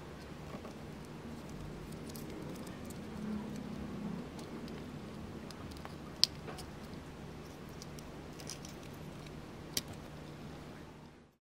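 Faint plastic clicks and rubbing from a tiny 1:76-scale plastic RC car being turned over in the fingers, with two sharper clicks about six and ten seconds in, over a steady low hum.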